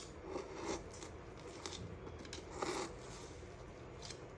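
Faint scraping and crunching of a knife blade working under a firmly set, crumbly dry-fruit paag on a steel plate to prize a cut piece loose, in a few short scrapes, the clearest about three-quarters of a second and two and a half seconds in.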